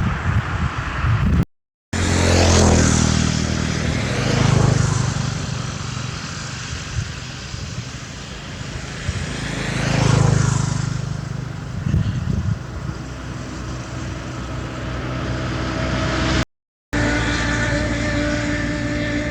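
An engine running, with several rising-and-falling whooshes of something passing by, cut off twice by brief gaps of silence.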